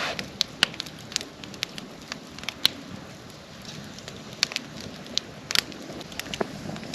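Wood fire burning with a faint steady hiss and irregular sharp crackles and pops, a few louder snaps standing out.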